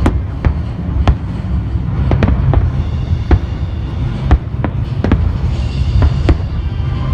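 Fireworks going off: about a dozen sharp bangs, one every half second to a second, over a steady low rumble of further bursts. Music plays faintly underneath.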